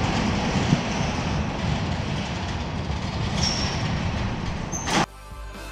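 Large metal sliding hangar doors rolling along their track: a steady rumble with brief high squeals, ending in a bang about five seconds in. Music starts right after.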